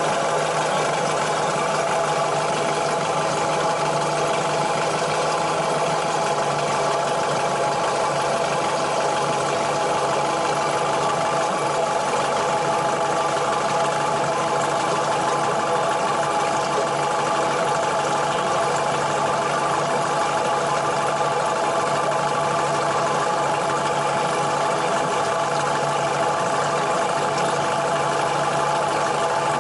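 A sailing yacht's inboard diesel engine idling steadily at an even speed.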